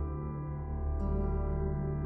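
Background music: soft, ambient sustained tones with a bell-like ring, a new note coming in about a second in.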